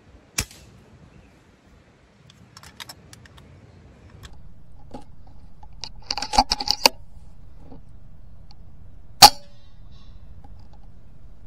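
A sharp click just after the start, a quick burst of light metallic clinking and rattling about six seconds in, then one sharp crack near the end, the loudest sound here: the shot of a .177 FX Dreamline PCP air rifle.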